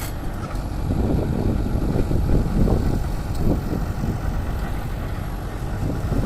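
Heavy diesel earth-moving machinery running steadily while an excavator loads stone into a dump truck, with a stretch of irregular clattering and grinding about a second in.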